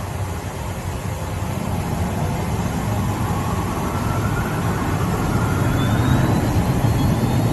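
Small business jet's turbofan engines spooling up for takeoff, heard from inside the cabin: a low rumble that grows steadily louder, with a thin whine that rises in pitch.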